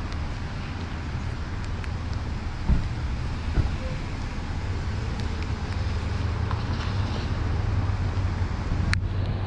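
Street traffic on a wet road: a steady hiss of tyres on wet pavement over a low rumble, growing slowly louder toward the end, with two brief dull thumps around three seconds in.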